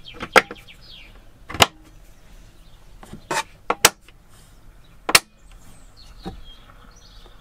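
Sharp clicks and knocks, about seven spread over the few seconds, from a camper-van dinette table top being pressed down onto its plastic snap catches by hand.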